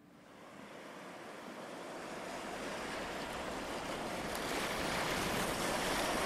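Sea waves and surf on a choppy sea, with some wind: a steady rushing noise that fades in from near silence and grows louder over the first few seconds.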